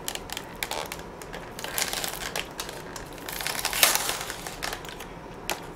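Plastic food packaging being peeled and opened by hand: irregular crinkling and crackling, a little louder around two seconds in and again near four seconds.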